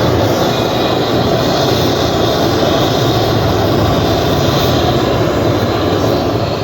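Steady, loud machine noise with a low hum underneath, running without change.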